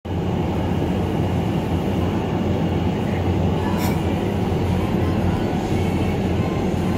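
Vertical wind tunnel for indoor skydiving running at flying speed: a loud, steady, deep rush of air from the tunnel's fans.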